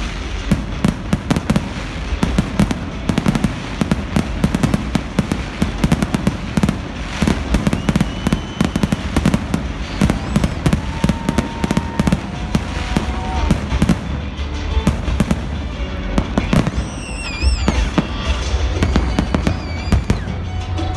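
Fireworks display: a dense, continuous barrage of aerial shell bursts, many sharp bangs and crackles in quick succession over a steady low rumble.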